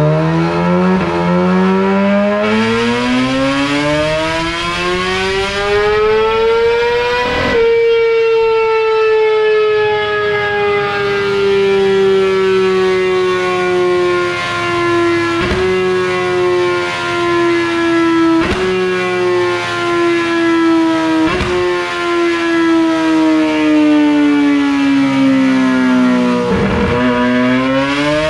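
Kawasaki ZX-10RR inline-four with a full race exhaust on a chassis dyno, doing a full-throttle pull: the revs climb steadily for about seven seconds to near the top of the range, then drop away and fall slowly for about twenty seconds, with a few sharp cracks along the way. Near the end the revs start climbing again for the next pull. These are first pulls on a new ECU map, used to set a rough full-throttle baseline.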